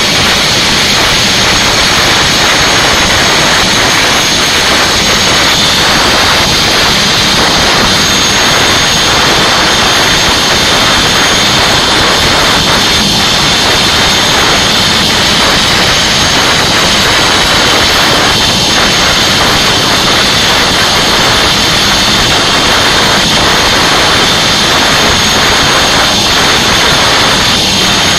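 Turbomeca Arriel 1D1 turboshaft engine running steadily: a loud, even turbine rush with a steady high whine over it.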